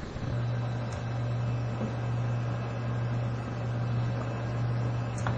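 A steady low electrical hum over a faint hiss, with two faint clicks, one about a second in and one near the end.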